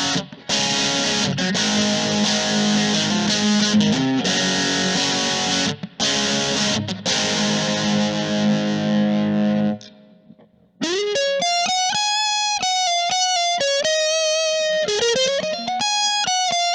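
Electric guitar, a Fender Stratocaster, played through a Kemper profile of a Fender Frontman Reverb practice amp with its original speaker cab, giving a distorted tone without the original amp's noise. Rhythm riffs of distorted chords with a few short stops for about ten seconds, then after a brief break a single-note lead line with bends and vibrato.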